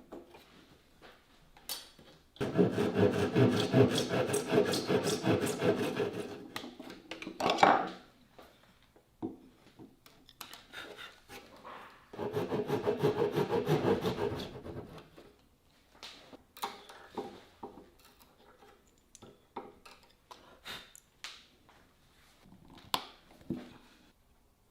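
Wood being worked with rapid back-and-forth strokes of a hand tool, a rasping, filing kind of sound, in two bouts of several seconds each. Light taps and clicks come between and after the bouts.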